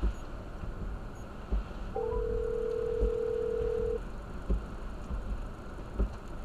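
Telephone ringback tone on speakerphone: a short rising three-note chime, then one steady two-second ring, the sound of an outgoing call waiting to be answered. Underneath, a steady rush of storm noise in the car with a dull thump about every second and a half.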